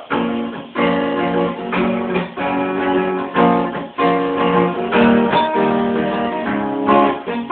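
Acoustic guitar strummed, playing chords that change every second or so.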